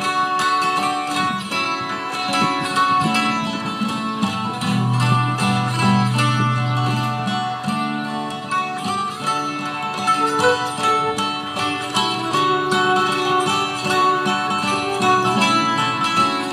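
Acoustic folk band playing an instrumental passage, with an acoustic guitar and other plucked string instruments and no singing.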